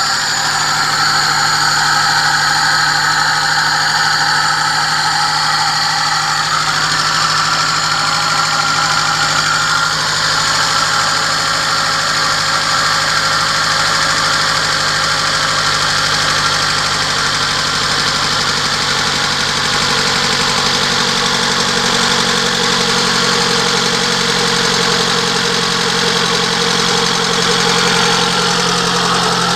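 VAZ 2111's 16-valve four-cylinder engine idling steadily, its note shifting about seven seconds in and then holding. It is running after its hydraulic lifters were reworked to cure their knocking, and whether the lifter knock is gone is not yet clear.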